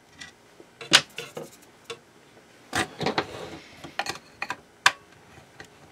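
Irregular sharp clicks and light knocks of hard plastic parts being handled as a hand mixer's housing is taken apart, the loudest about a second in.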